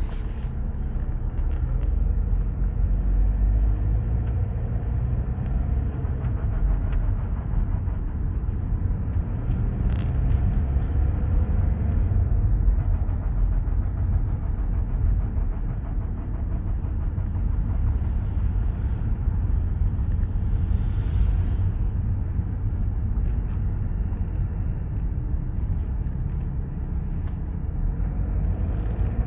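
Skoda Octavia 2.0 TDI diesel with a seven-speed DSG gearbox running, a steady low rumble carrying a strange noise that the owner cannot place. A brief rise in pitch and level comes about three-quarters of the way through.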